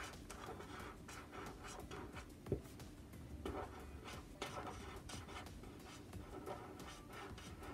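A Tombow Dual Brush Pen's tip stroking across paper as a word is hand-lettered: faint, short scratchy strokes one after another, with a single light knock about two and a half seconds in.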